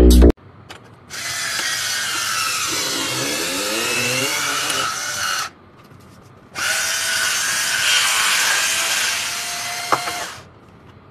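Two battery-powered electric wine openers running at once, their small motors whirring with a wavering pitch as the corkscrews turn in the corks. They run twice, each for about four seconds, with a short pause between, and there is a click near the end of the second run.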